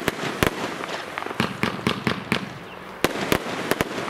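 Vuurwerktotal VOLT 'White Red Rebel' fireworks firing shots that burst into red and white stars. Sharp bangs come every fraction of a second with a dense crackle between them, and the loudest reports fall near the start and about three seconds in.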